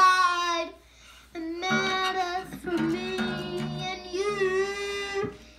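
A young boy singing with acoustic guitar chords. A held note ends about half a second in, there is a short pause, then he sings on over the guitar until just before the end.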